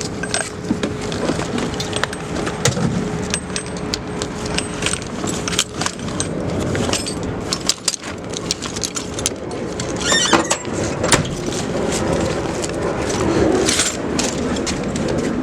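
Metal tools clinking and rattling as they are handled, with many irregular sharp clicks and a few louder clanks about ten seconds in, over steady background noise.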